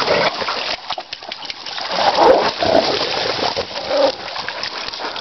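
Two dogs playing in shallow stream water: constant splashing and sloshing, with short dog vocal sounds about two seconds in and again near four seconds.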